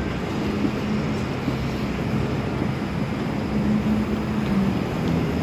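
Bombardier Flexity Outlook low-floor electric streetcar creeping forward at low speed. It gives a steady low electric hum whose pitch shifts slightly, over rolling and traction noise.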